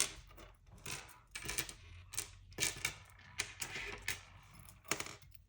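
Small pieces of metal costume jewelry clicking and clinking against each other and the table as they are handled and sorted, with about a dozen irregular sharp clicks and light rustling between them.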